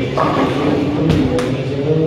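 Bowling alley din: background music with held notes over a noisy hall, and two sharp knocks a little after a second in.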